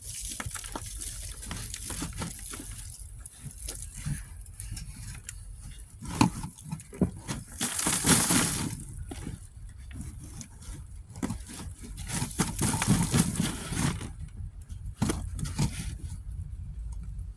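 Digging in garden soil around sweet potato plants: irregular scraping, crunching and rustling of dirt and roots, busiest about six to eight seconds in and again about twelve seconds in.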